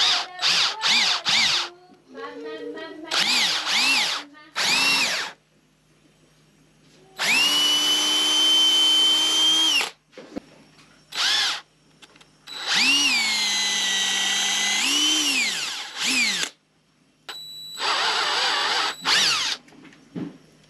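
Power drill working the plastic cutting-board mounting block, run in about eight separate trigger pulls: each time the motor whines up to speed and winds back down, the two longest runs lasting three to four seconds.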